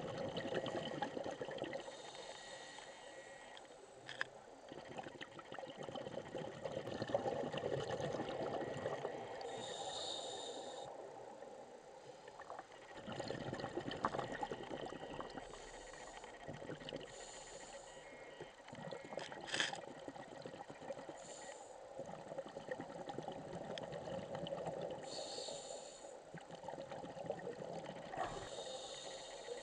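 Scuba diver breathing through a regulator underwater: long rumbling bursts of exhaled bubbles alternating with short hissing inhalations every several seconds.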